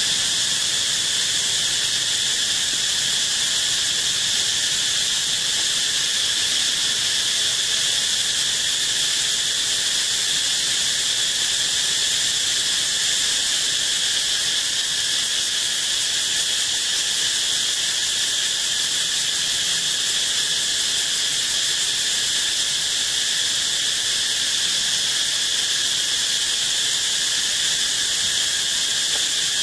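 A steady chorus of insects: a constant, high-pitched buzzing that holds the same level without a break.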